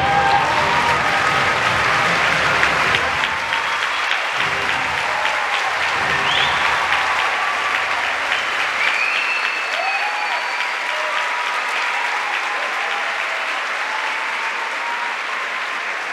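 Large theatre audience applauding, with a few cheers and whistles; the last of the music underneath dies away about halfway through.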